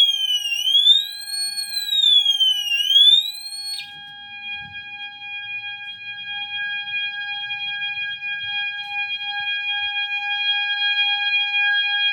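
Two fire alarm horns sounding together: an FCI horn strobe on its siren tone, a slow sweep up and down about every two seconds, and a second alarm holding a steady continuous horn tone. The siren sweep cuts off with a click about four seconds in, and the steady horn carries on, growing a little louder toward the end.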